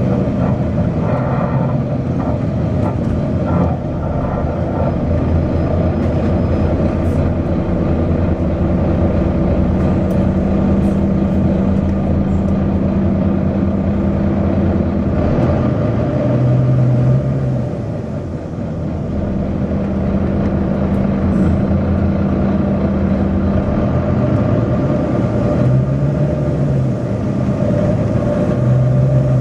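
Volvo B9TL double-decker bus's engine and drivetrain running under way, a steady drone whose tones change pitch several times as the bus pulls away and slows, with a brief dip in loudness around the middle.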